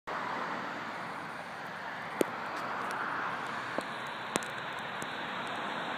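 Steady outdoor background noise with three short, sharp knocks; the loudest comes about two seconds in and the other two close together a couple of seconds later.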